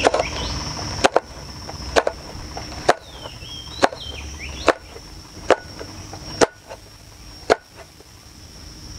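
Cleaver slicing a red chili on a plastic cutting board: sharp knocks of the blade striking the board, about one a second, nine in all.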